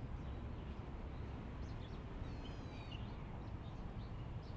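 Birds calling: a wavering call of several notes in the middle and short high chirps scattered through, over a low steady rumble of background noise.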